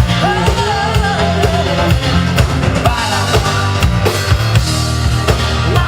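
Rock music played by a full band: a drum kit keeping a steady beat over a heavy bass line, with a pitched melody line on top.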